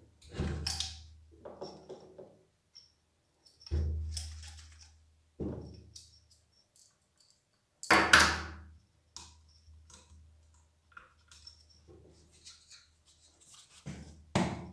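An electric pressure washer's induction motor being handled and turned over by hand on a wooden stand. Several separate knocks and thuds, the loudest about eight seconds in, with light metallic clinks between them.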